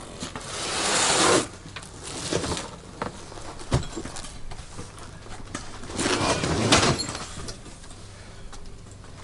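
Handling noises of a pop-up canopy shelter being set up: rustling and sliding sounds that swell about a second in and again, louder, around six to seven seconds, with a few sharp clicks and knocks between.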